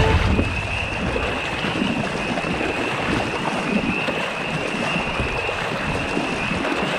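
Water lapping and sloshing around a moving kayak, with wind on the microphone. Under it runs a steady high-pitched chorus, typical of frogs calling from a pond in spring.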